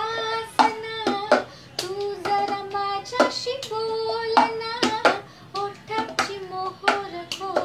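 A woman singing a tune while keeping the cup-song beat: hand claps and a plastic cup knocked and set down on a wooden table, in a steady rhythm of sharp knocks under the voice.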